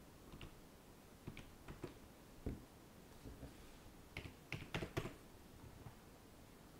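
Computer keyboard keys tapped in short runs of faint clicks while numbers are typed: a few scattered clicks in the first half, then a quicker cluster of louder ones about four to five seconds in.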